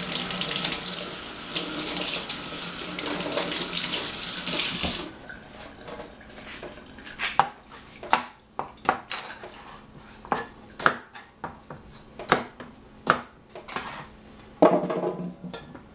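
A kitchen tap runs into a stainless steel sink for about five seconds and stops. Then a cleaver chops peeled cucumber on a plastic cutting board: a string of single sharp knocks, roughly one or two a second.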